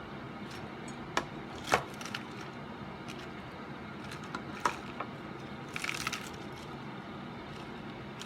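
A few sharp, light clicks and knocks, with a short rattling cluster about six seconds in, over a steady background hum.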